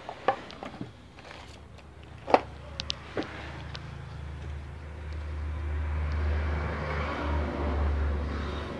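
A few light clicks and taps of parts and tools being handled, then a low rumble that swells from about four seconds in and eases off near the end.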